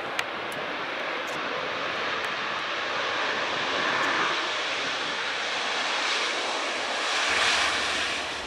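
Boeing 737-800's twin CFM56 jet engines at high power as the airliner accelerates along the runway on its takeoff roll. A steady rushing jet noise grows louder as it passes, loudest near the end, then drops away.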